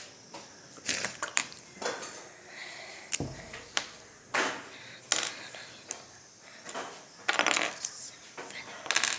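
Plastic Lego bricks clicking and rattling as pieces are handled, pressed and sorted. Scattered short sharp clicks, with a quick rattle of several together late on.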